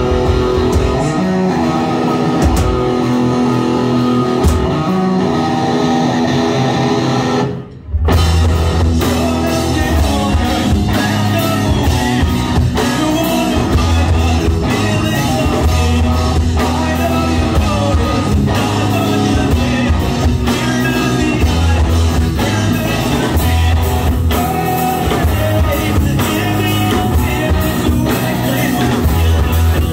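Live rock band playing with electric guitars, bass, drum kit and a singer. A sudden brief break about eight seconds in, after which the full band comes back in with heavy bass and drums.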